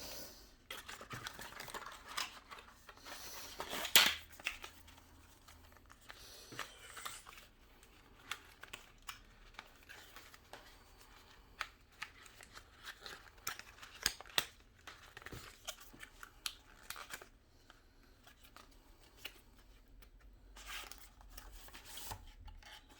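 Packaging being handled and opened by hand: rustling and tearing with scattered small clicks, and one sharper knock about four seconds in.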